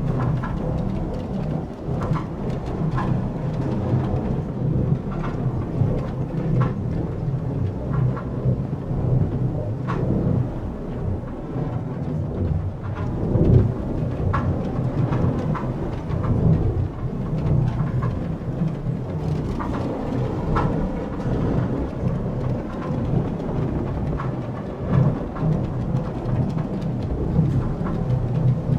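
Sound effect of an alien factory machine: a steady low hum under a dense scatter of clicks and knocks, briefly louder about halfway through.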